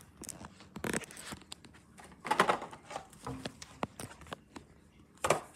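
Handling noise on a handheld phone: irregular rustling, scraping and light knocks as it moves and is covered. The loudest rubbing comes about two and a half seconds in, with another sharp rustle near the end.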